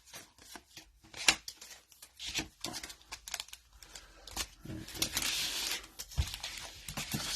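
Trading cards and a foil pack wrapper being handled: a run of small clicks and card slides, then a stretch of crinkling and tearing from about four and a half seconds in.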